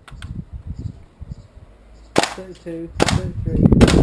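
WE L85A2 gas blowback airsoft rifle firing on semi-auto, still running on one fill of gas in the magazine. A few light handling clicks come first, then two shots about two and three seconds in, each a sharp crack with a short metallic ring from the blowback bolt. A louder low rush of noise follows near the end.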